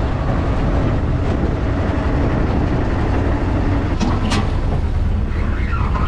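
Steady, loud rumble of a ride in a small moving vehicle, with a couple of brief sharper sounds about four seconds in.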